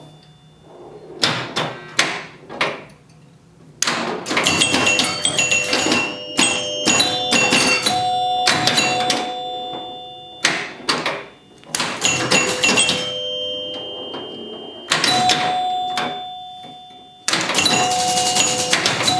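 1976 Gottlieb Surf Champ electromechanical pinball machine in play: its score chimes ring in quick runs over a clatter of sharp clicks and knocks from flippers, bumpers, relays and score reels. The play comes in bursts with short lulls between them.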